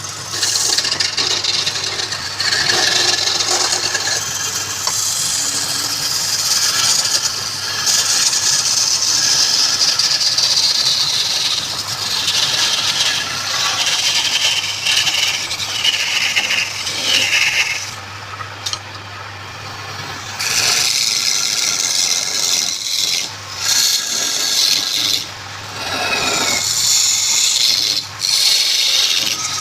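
Wood lathe running, with a turning tool cutting the spinning wood in a continuous scraping hiss over the lathe's steady low hum. The cutting eases off for a couple of seconds about two-thirds of the way through and again briefly near the end.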